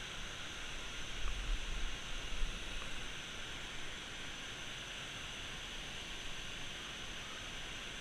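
Steady rushing hiss of a river waterfall, water pouring over rock ledges below a dam spillway, with a few low thuds on the microphone between about one and three seconds in.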